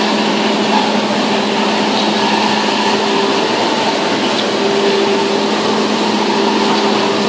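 Paper slitter-rewinder running: a steady mechanical noise with a constant low hum and no break or change.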